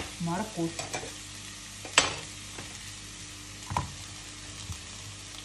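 Sliced onions sizzling steadily in hot oil in a frying pan. There are two sharp knocks, the louder about two seconds in and a duller one near four seconds, as peeled carrots are set down on a plastic cutting board.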